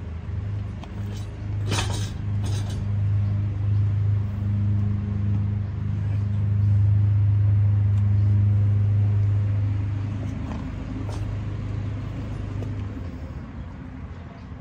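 A low, steady mechanical drone that grows louder toward the middle and fades after about ten seconds, with two sharp clanks about two seconds in.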